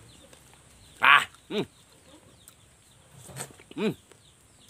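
Chicken calling in short clucks: four calls in two pairs, about two seconds apart.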